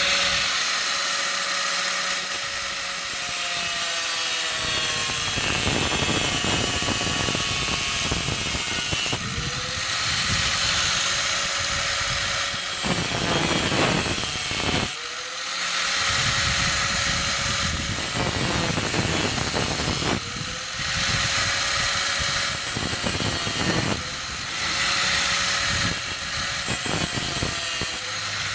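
A budget Harbor Freight angle grinder is cutting through a brass car battery terminal. The motor note sags as the disc bites into the metal. It climbs back each time the disc is lifted off, which happens several times.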